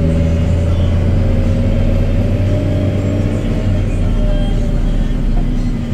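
Fendt 920 Vario tractor's MAN six-cylinder diesel running at a steady cruise while driving on the road, heard from inside the cab: a steady low drone with a higher whine above it.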